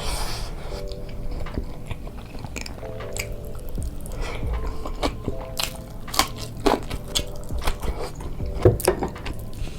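Close-miked eating: repeated biting and chewing with sharp wet mouth clicks, busier and louder in the second half, over light background music.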